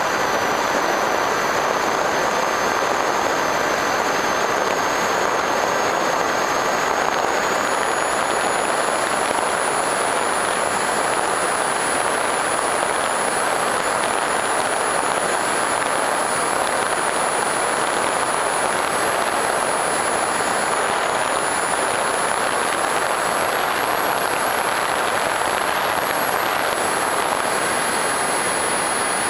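Electric FPV Raptor 1600mm model airplane in flight, heard through its onboard camera: a steady rush of propeller and wind noise with a thin high whine that steps up in pitch about eight seconds in.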